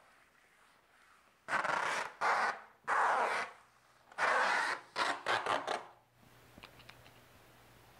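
A hand rubbing sheathing tape down onto the seam between rigid foam insulation boards. It makes four rasping strokes of about half a second each, then a run of quicker, shorter strokes that stops about six seconds in.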